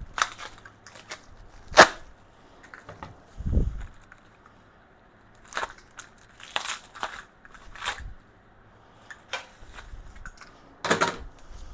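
Packing material being handled and pulled off boxed tool-cart parts: irregular crinkling, crunching and tearing, with a low thump about three and a half seconds in.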